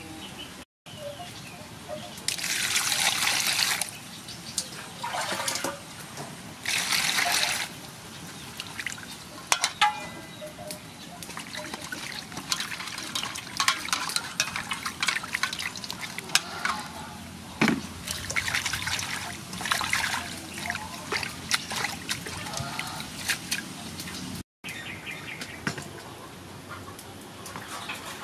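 Water in an aluminium basin: three loud gushes in the first several seconds, then lighter irregular splashing and sloshing as tomatoes and cilantro are washed by hand.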